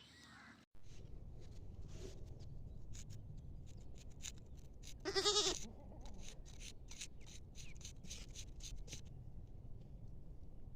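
A goat bleats once, a short wavering call about five seconds in, over a steady low background rumble with scattered faint clicks.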